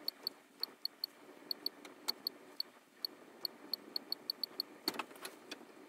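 HP Color LaserJet Pro MFP M283 touchscreen giving a short high key-press tick for each tap as a network name is typed on its on-screen keyboard: a rapid, uneven run of identical ticks with a brief pause about halfway.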